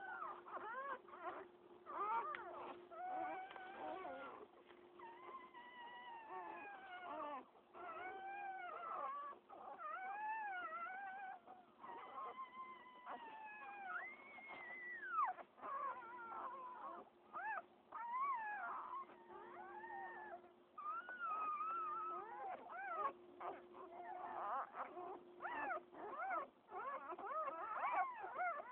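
Newborn pit bull puppies squealing and whimpering, several at once, in short cries that rise and fall in pitch with hardly a pause between them.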